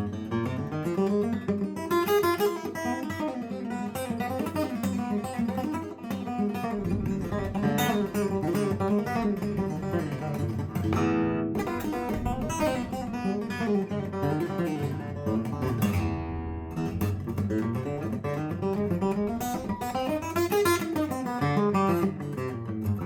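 Guitar playing quick runs through the F minor pentatonic scale with pull-offs to the open strings, the lines repeatedly climbing and falling in pitch.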